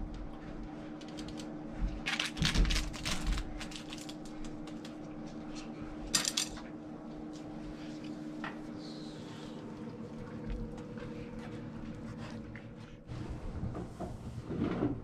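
Cooking chopsticks clinking and scraping against a metal saucepan while instant ramen is stirred, in short clusters of sharp clicks over a steady hum that stops near the end.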